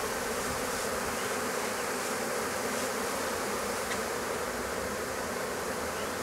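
Steady buzzing hum of a honeybee swarm of about ten thousand bees crowding over the frames of an open hive box. It is an even hum of calm bees, not aggressive ones.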